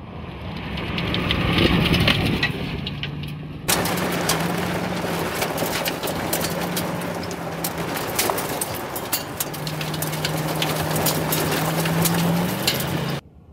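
2011 Ford F-150 SVT Raptor's V8 engine running hard as the truck speeds over a dirt track, swelling as it passes by. About four seconds in the sound jumps to right under the truck: a dense rush of tyres on sand and gravel, full of sharp ticks of grit striking the underbody, over a steady engine note.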